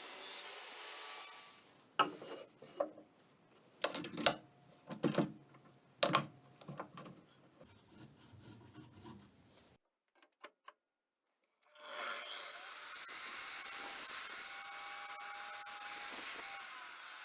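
Woodworking tool sounds: a steady rasping on wood, then a run of sharp knocks on wood, and, after a short pause, a power tool running steadily with a high whine.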